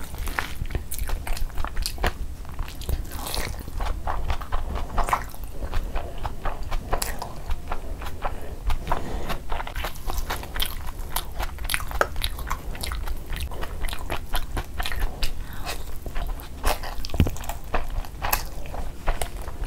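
Close-miked eating sounds: chewing with wet mouth clicks and smacks as biryani rice and chicken curry are eaten by hand, along with the squish of fingers working through the rice. The clicks come thick and irregular.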